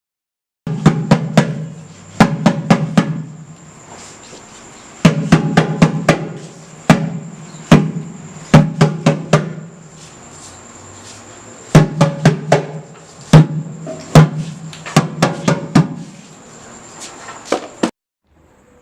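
Drum music: clusters of quick drum strokes with a strong low drum sound, in groups every second or two. It starts about a second in and cuts off abruptly near the end.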